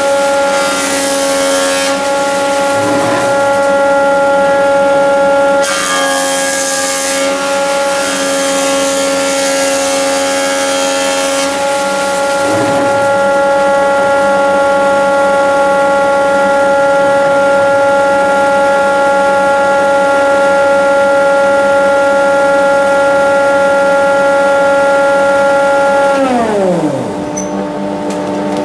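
Woodworking planer running with a steady whine. Twice the cutter noise thickens into a rough hiss as a board is fed over the knives and planed. Near the end the machine is switched off and its whine falls away steeply in pitch as the cutterhead spins down, leaving a lower, steady hum from another machine.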